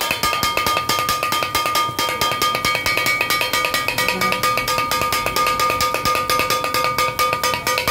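Kothu parotta being chopped on an iron griddle with two steel blades: a fast, even clatter of metal strikes, several a second, with the griddle ringing steadily underneath.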